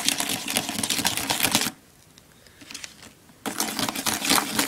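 Small spoon stirring fast in a plastic candy-kit tray, a dense run of little clicks and scrapes as the powder-and-liquid mix is whipped into foam. It stops for nearly two seconds midway, then starts again.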